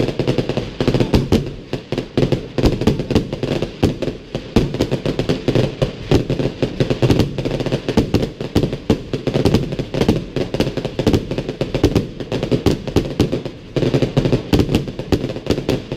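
New Year's fireworks: a dense, continuous barrage of bangs and crackles, many a second.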